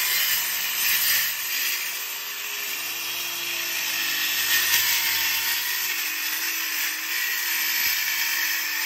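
SKIL 5-1/2-inch brushless cordless circular saw cutting through a 2x12 board. The motor runs steadily under load, with a loud high hiss from the blade in the wood, and its pitch dips slightly as the cut goes on.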